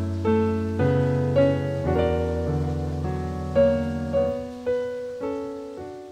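Background piano music: a melody of struck single notes, about two a second, over low bass notes that drop out about two-thirds of the way through.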